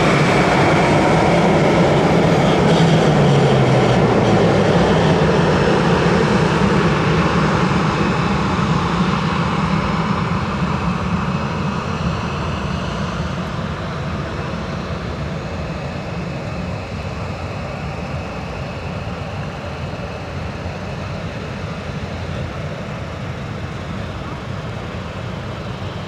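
Boeing 737-800's CFM56-7B jet engines running as the airliner taxis past at close range. A low tone drops in pitch in the first few seconds, and the engine noise then slowly fades as the aircraft moves away.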